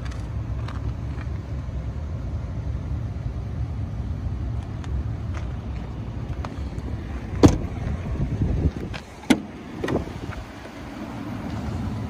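Crew-cab pickup's doors being handled: a sharp knock about seven and a half seconds in, then two more clicks over the next two and a half seconds, over a steady low rumble.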